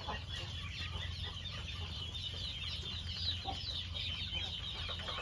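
A flock of young Muscovy ducks peeping: a dense, overlapping chorus of short high chirps that thickens in the second half.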